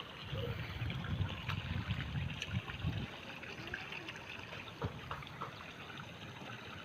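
Water trickling steadily, with a low rumbling during roughly the first three seconds.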